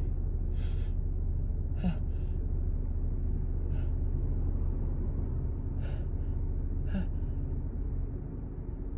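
A person sniffing and gasping in short, sharp breaths through a stuffy, runny nose, about half a dozen times, as a tickle builds toward a sneeze. A steady low hum runs underneath.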